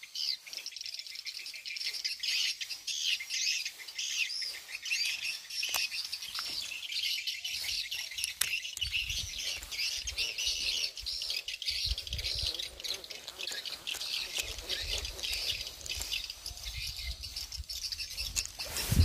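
Birds chirping continuously in a dense, high-pitched chorus. From about eight seconds in, low rumbling comes and goes underneath it.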